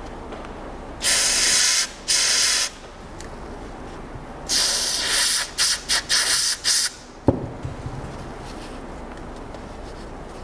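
Aerosol turbine lubricant sprayed into an NSK FX22 contra-angle dental handpiece to flush residue out of its head: two hissing bursts of about a second each, then a run of short spurts. A single sharp click follows about seven seconds in.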